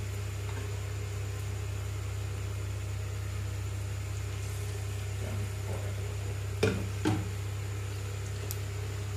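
Soya chunk pakoras frying in oil in a nonstick kadai, under a steady low hum. About seven seconds in come two quick knocks of a wooden spatula against the pan as the pakoras are turned.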